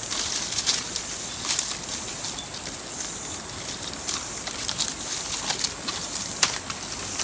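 Faint crackling and rustling of dry sticks and a tangled, discarded fishing net being pulled at and worked free by hand, as scattered short clicks over a steady high hiss.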